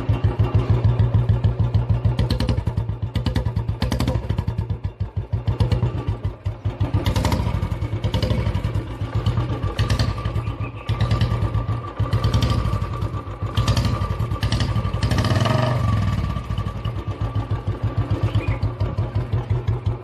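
Hero Honda single-cylinder four-stroke motorcycle running through a long homemade exhaust extension capped with a metal water pot, giving a deep, rapid thumping exhaust beat that rises and falls with the throttle. The beat is meant to imitate, and is likened by its builder to, a Royal Enfield Bullet.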